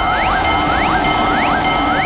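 Electronic railroad crossing warning bell sounding continuously, struck about twice a second over steady ringing tones. Quick rising electronic sweeps, several a second, are layered over it.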